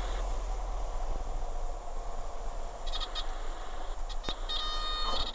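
Steady engine and airflow noise inside a single-engine Piper Arrow in the landing flare, with a few light clicks. Near the end a buzzing warning tone starts.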